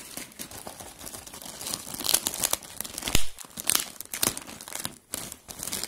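Clear plastic mailing bag crinkling in the hands while the packing tape sealing it is picked and peeled off, in irregular crackles, with the loudest crackle about three seconds in.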